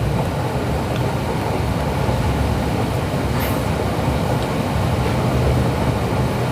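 Steady rumble of a train running, heard from inside a passenger carriage, with a low hum under it.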